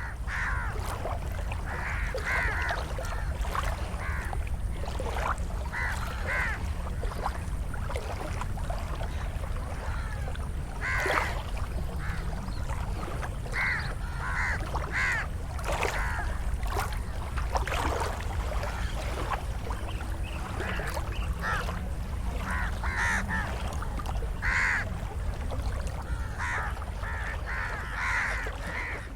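Evening outdoor ambience of crows cawing again and again, with children's voices and faint music far off, over a steady low rumble.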